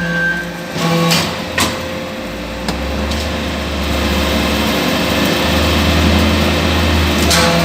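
Hydraulic scrap briquetting press running: a steady machine hum with a few sharp metallic knocks, then a deep low drone comes in about two seconds in and holds.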